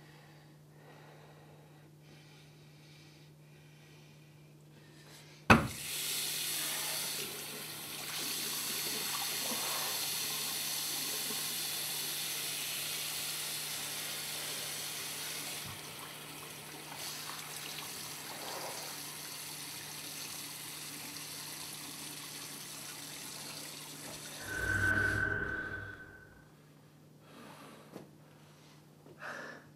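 A washbasin tap turned on with a sharp click, then water running steadily into the basin for about twenty seconds. Just after the water stops comes a brief, loud sound with a single steady high tone.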